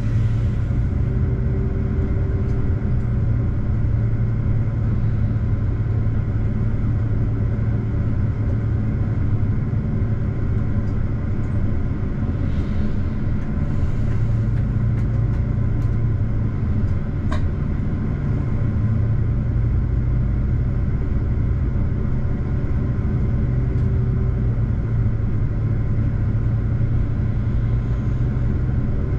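Diesel regional train running steadily at about 100 km/h: a continuous rumble of engine drone and wheels on rail. A single short click sounds about halfway through.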